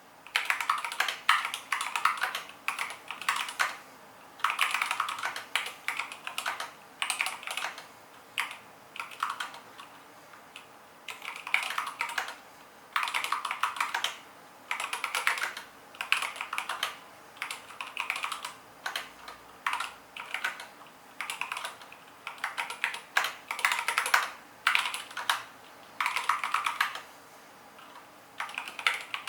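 KBD75v2 mechanical keyboard with stock Tealios v2 linear switches being typed on: runs of rapid keystrokes lasting a second or two, broken by short pauses.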